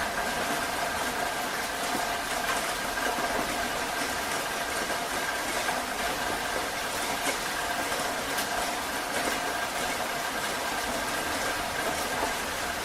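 Heavy rain falling steadily: an even hiss with scattered individual drop hits, and a faint steady hum underneath.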